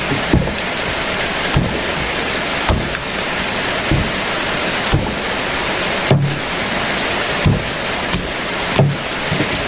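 Heavy rain falling steadily, with short dull knocks about once a second that come a little faster near the end.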